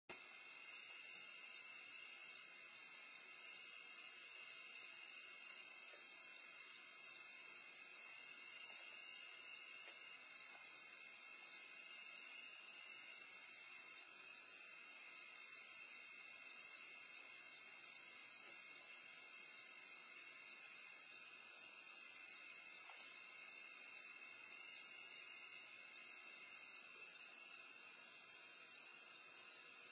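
Night insect chorus: a steady, continuous high-pitched drone of many insects, with a lower-pitched strand that drops away about halfway through and returns near the end.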